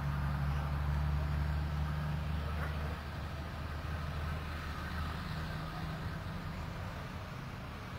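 Low, steady hum of a motor vehicle's engine, weaker after about three seconds.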